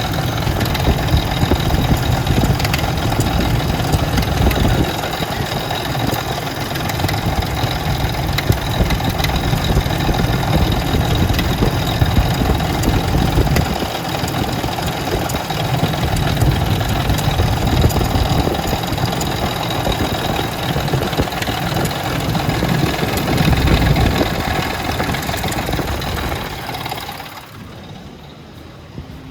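Ford Expedition's 4.6-litre two-valve V8 running, its low rumble rising and falling a few times, then switched off about 27 seconds in.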